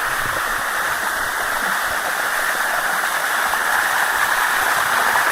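Water running steadily down the cascades of the Sticky Waterfall, an even rushing.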